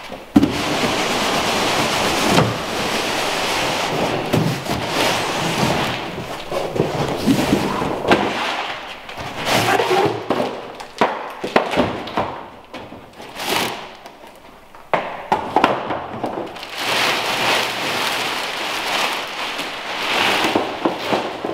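Cardboard packaging being pulled apart and plastic wrapping rustling and crinkling as a gas grill is unpacked: a long run of scraping, crackling noise with sharp knocks, quieter for a few seconds past the middle.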